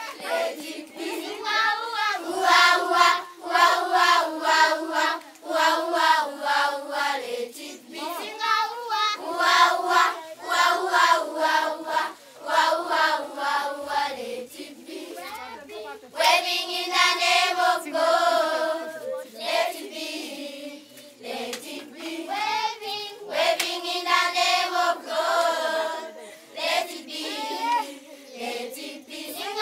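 A group of children singing a song together in short repeated phrases with brief breaks, and hands clapping along.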